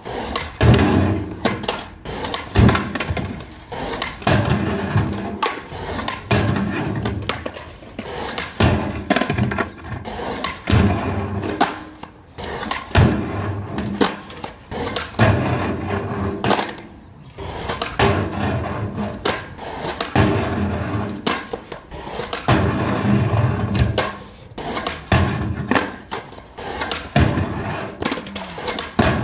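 Skateboard wheels rolling on concrete, with repeated clacks, thuds and slides of the board on a funbox ledge as tricks are tried and landed. Background music plays over it.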